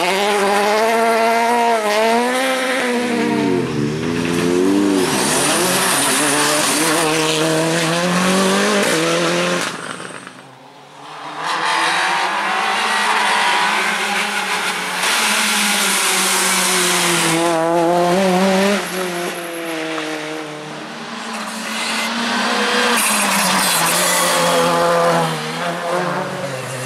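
Rally cars driven flat out on a tarmac stage: engines revving hard and dropping through gear changes, with tyres squealing. The sound dips briefly about ten seconds in and changes again near nineteen seconds as the car heard changes.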